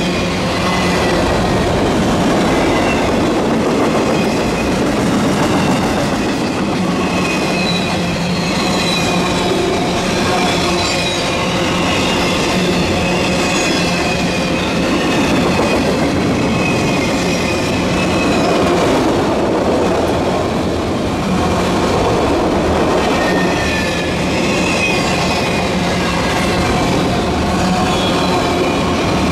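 Empty autorack cars of a freight train passing close by at speed: a steady, loud rolling rumble and rattle of wheels on rail, with high, wavering squeals coming and going.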